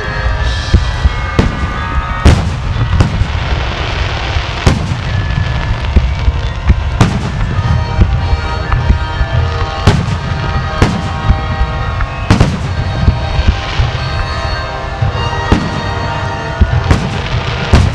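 Fireworks display: aerial shells bursting one after another, a sharp boom about every second over a continuous low rumble.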